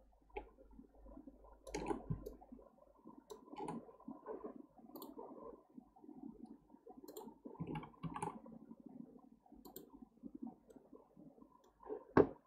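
Computer mouse and keyboard clicks, scattered and irregular, with one louder, deeper knock near the end.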